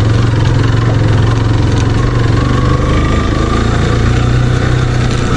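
Motorcycle engine running steadily while the bike is ridden over a rocky dirt track.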